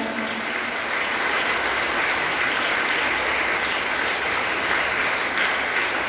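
An audience applauding, a steady round of clapping.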